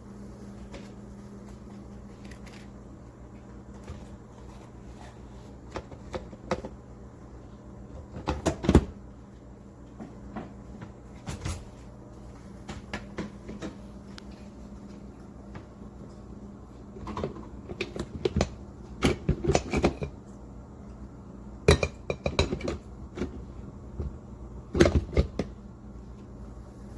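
Scattered clunks, knocks and clicks of hard kitchen items, such as a coffee maker and its pot and lid, being handled and set down, in short clusters with a few louder knocks. A steady low hum runs underneath.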